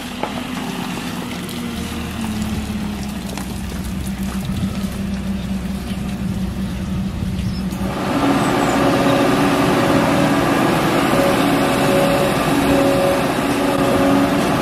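Kramer loader's diesel engine running as it drives the washer bucket, its note rising slightly about two seconds in. About eight seconds in the sound jumps louder, with a steady hum that swells and fades in a regular beat.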